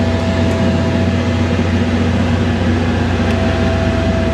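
Steady mechanical hum from a running motor or engine, with a constant thin whine above it.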